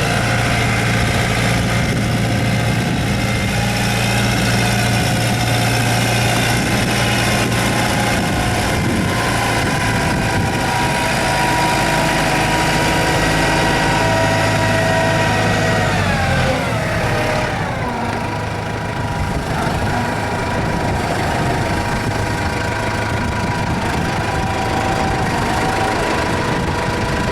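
Kubota M108S tractor's diesel engine running steadily, its pitch falling about sixteen seconds in as the revs come down, then running on at the lower speed.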